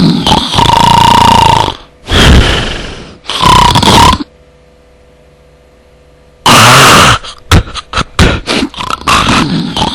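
Very loud, distorted snoring: three long rasping snores in a row, a pause of about two seconds, then one loud snore that breaks into a quick run of short snorts and sputters.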